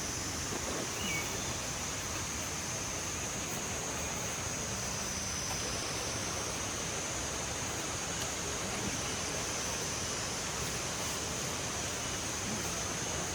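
River water rushing steadily over rocks, with a steady high-pitched drone above it.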